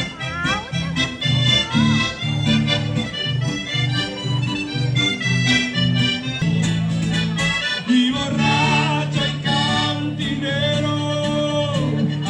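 Live accordion-led music over a pulsing bass line. About two-thirds of the way in, the short pulsing notes give way to long held chords.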